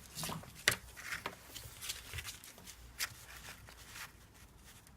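Handling noise as heat-shrink tubing is slid over a soldered wire: soft rustling of plastic and cable with a few small sharp clicks, the clearest about a second and three seconds in.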